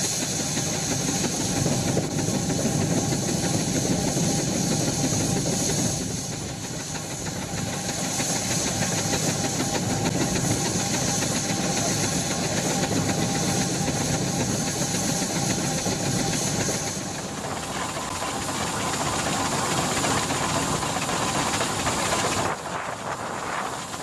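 Steam ploughing engine working under load, hauling its plough cable: a steady hiss of steam over the running of the engine. The sound changes abruptly near the end.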